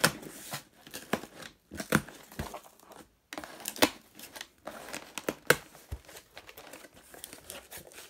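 Packing tape being ripped off a cardboard box and the flaps pulled open, then kraft packing paper crinkling, in a run of sharp, irregular rips and rustles.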